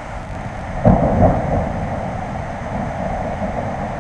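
Thunder: a sudden clap about a second in, a second peak just after, then a rolling rumble that carries on over a steady background hiss.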